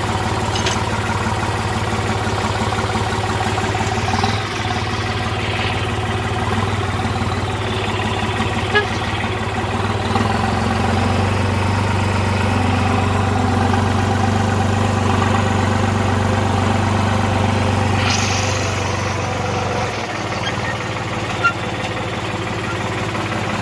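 Diesel farm tractor engine idling steadily, its low note changing for about ten seconds in the middle, with two short sharp clicks.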